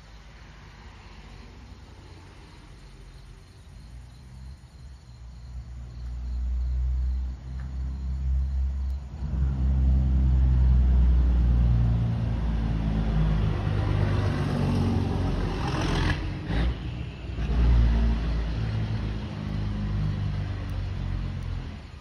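Low, engine-like rumble, as of a motor vehicle running nearby, swelling in from about five seconds in and staying loud. A brief sharper noise cuts through it around two-thirds of the way through.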